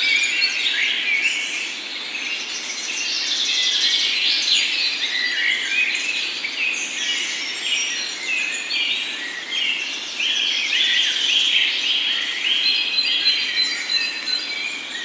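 Dense chorus of many songbirds chirping and trilling at once.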